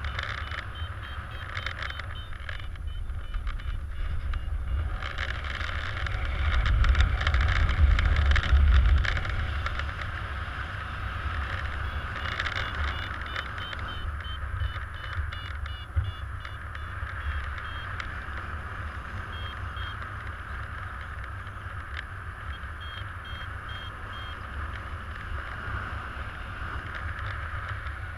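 Wind rushing over the microphone during paraglider flight, with a low buffeting that swells about six seconds in and eases after nine. At a few points a variometer beeps in short rapid runs, the sign of climbing in lift.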